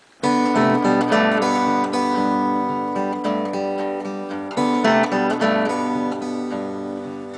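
Acoustic guitar strumming slow chords that are left to ring, starting abruptly just after the start, with a fresh strum about halfway through.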